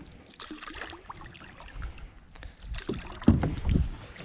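Light water splashing and handling noise around a kayak, with a few loud low thumps about three seconds in.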